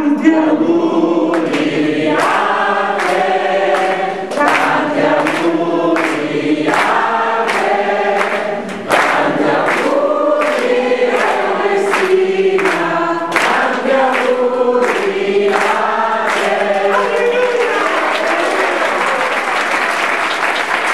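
A large crowd singing together as a choir, clapping along on a steady beat. Near the end the singing stops and gives way to applause.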